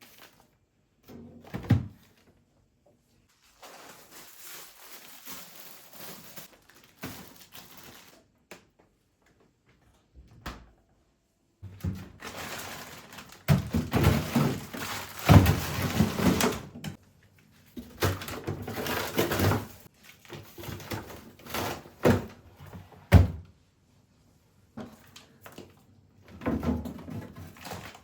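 Household objects being handled and set down: scattered thunks and knocks, with stretches of rustling in between.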